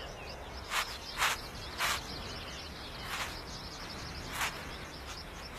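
Many small birds chirping and twittering in the background, with several short, sharp noisy bursts standing out over them.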